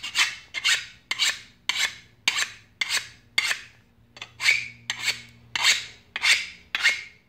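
A hand file rasping along the steel edge of a lawn mower blade to sharpen it, in steady repeated strokes, a little under two a second, each starting sharply and fading.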